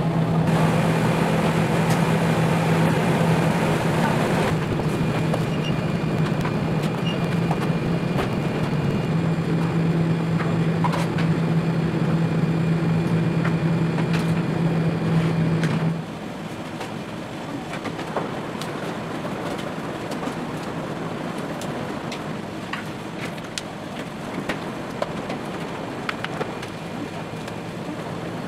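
Steady electric hum of commercial kitchen equipment, which stops about halfway through and leaves quieter kitchen room noise with scattered light clicks and clatter.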